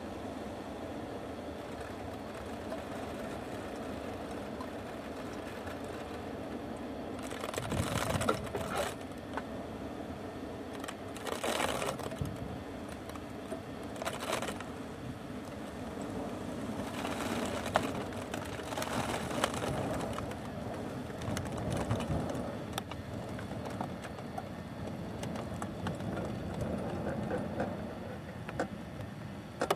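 Wildfire burning through black spruce forest: a steady rushing of flames with louder bursts of crackling and popping every few seconds as the fire closes in.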